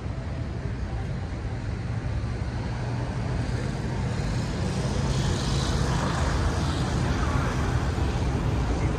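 Road traffic on a city street: a steady low rumble of vehicles, growing louder about halfway through as one passes close with a hiss of tyres.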